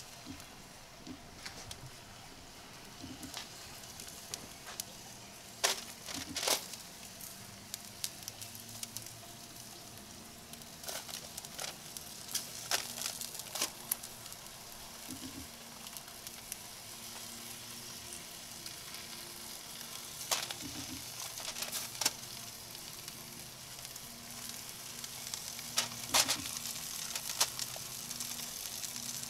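Bacon sizzling on a hot foil-lined tray on a grill, a steady hiss that grows gradually louder, with sharp crackles now and then.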